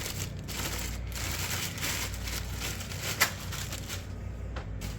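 Rustling and handling noise with scattered light clicks and one sharp metallic click about three seconds in, as a new front wheel hub bearing is handled.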